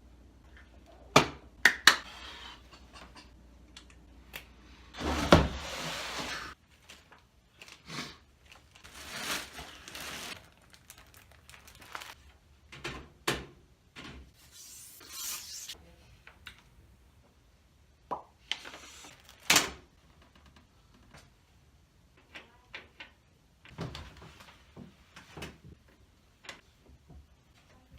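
Hands handling computer parts and packaging: scattered clicks and knocks, a few sharper thunks, and short stretches of rustling and sliding.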